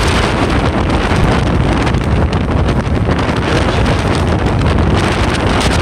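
Steady, heavy wind noise buffeting the microphone of a camera riding on a moving vehicle, over a continuous low rumble of the ride.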